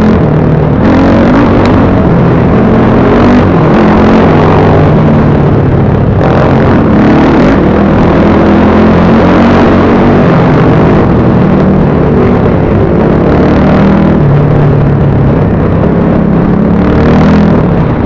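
BSE Z6 enduro motorcycle engine being ridden, its pitch rising and falling as the throttle opens and closes.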